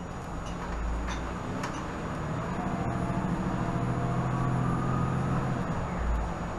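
Diesel engine of a 2018 Nova Bus LFS city bus, heard inside the cabin, pulling the bus up to speed: its hum and a faint whine rise steadily in pitch over a few seconds in the middle, then ease off near the end.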